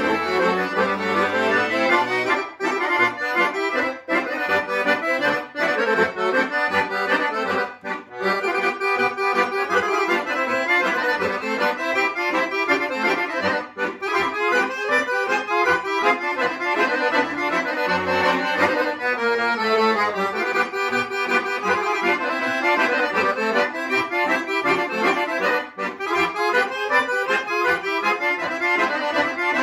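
Two chromatic button accordions, a Guerrini and a Dallapè, playing a Serbian kolo together as a duet, with a continuous stream of notes.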